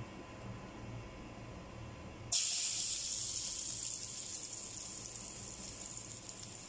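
Sliced ginger hitting hot oil in a pot, breaking into a loud sizzle about two seconds in and sizzling steadily after that, over a low hum.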